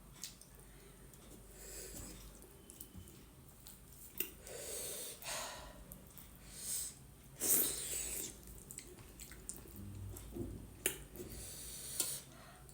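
Close-up eating sounds: wet chewing and slurping of soft maize dhido with gundruk gravy, with short breaths in between. The loudest slurp or breath comes about seven and a half seconds in.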